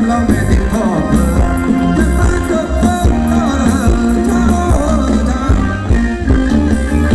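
Loud Thai luk thung dance music from a live band over a PA system, with a heavy bass and a steady drum beat under a melody line.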